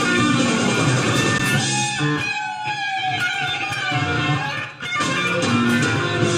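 Electric guitar improvising in a live blues-rock recording, with a note bent and held through the middle and a short break about three-quarters of the way through.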